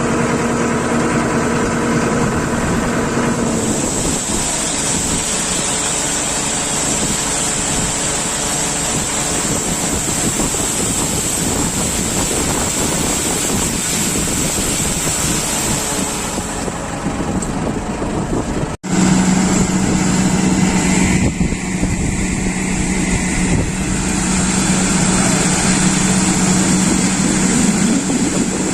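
A heavy vehicle's engine running steadily. After a brief break about two-thirds through, a steady low drone carries on.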